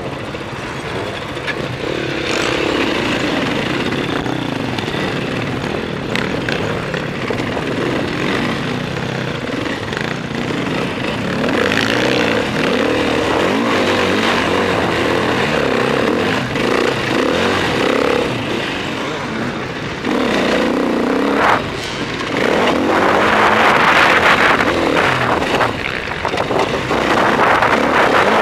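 Enduro motorcycle engine revving up and down through the gears while being ridden off-road, heard from a helmet-mounted camera. It is loudest about four-fifths of the way through, where a rushing noise joins in.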